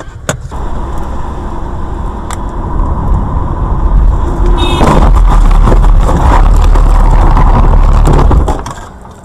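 A car heard from its own dashcam runs off the road and bounces over rough ground into bushes: a heavy, very loud rumbling and scraping lasts about four seconds, then drops away suddenly near the end.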